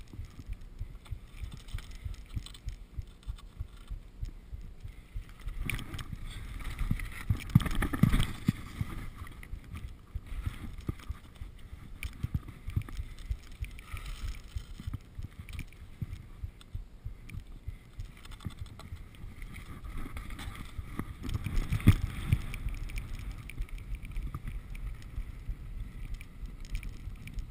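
Skis sliding and scraping over snow with wind rushing past, a low, uneven noise full of short scrapes. The scraping swells louder about eight seconds in and again around twenty-two seconds.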